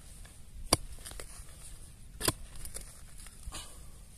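Short, sharp knocks and clicks: two loud ones, one a little under a second in and one a little past two seconds, with fainter ticks between and after.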